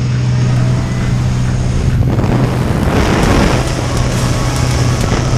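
Small single-engine jump plane's propeller engine droning steadily inside the cabin, with a rush of wind noise that swells about two seconds in as the door is opened in flight.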